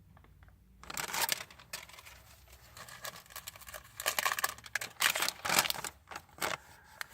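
Paper receipts being handled, crinkling and rustling in irregular bursts with sharp little clicks.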